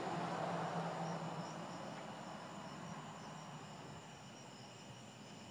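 A low rumble fading away over about four seconds, with night insects chirping steadily underneath.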